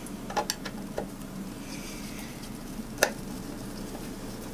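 Hand screwdriver backing screws out of a speaker cabinet's back panel: small scattered clicks and ticks, with one sharper click about three seconds in.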